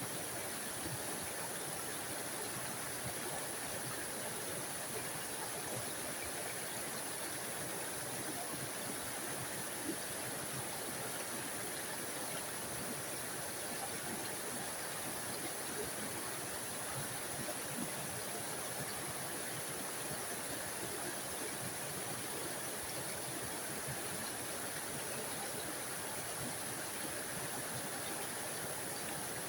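Small forest waterfall splashing and rushing steadily, an even wash of water noise.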